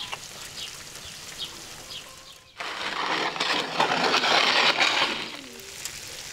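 A large round metal baking pan scraping across the brick floor of a wood-fired oven as it is dragged out, a loud grating noise lasting about three seconds from just before the middle. Faint bird chirps before it.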